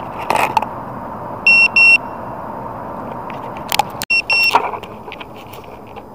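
Short electronic beeps in two quick pairs, one pair about a second and a half in and another about four and a half seconds in, over a steady hiss with a few clicks.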